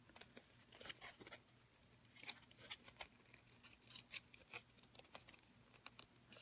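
Faint scattered crinkles and soft clicks of die-cut cardstock being pre-folded by hand along its score lines.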